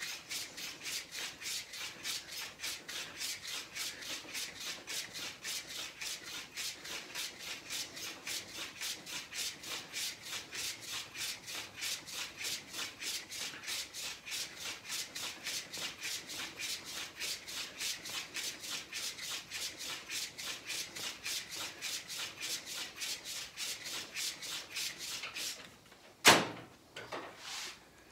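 Straight razor being stropped on a leather strop: quick, even back-and-forth passes, several a second, steel sliding on leather. The strokes stop near the end, followed by a single sharp knock.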